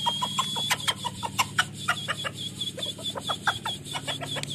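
Rooster giving rapid, irregular short clucks while pecking at food. A high, fast-pulsing chirp runs behind it from about a second in, over a steady low hum.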